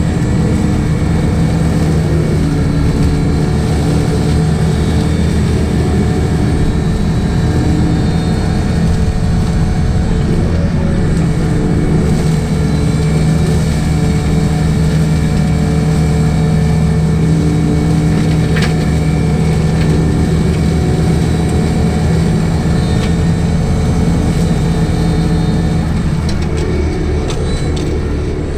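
Diesel engine of a Yanmar ViO55 mini excavator running steadily at high revs under load, powering a FEMAC T9 FS flail mulcher head as it shreds tall grass.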